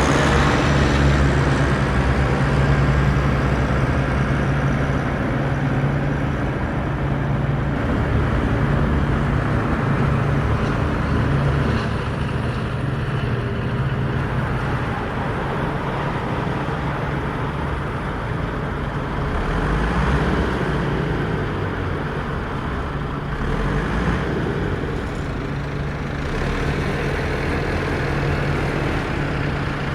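Vehicle engine running steadily while driving, with a constant low hum under tyre and road noise.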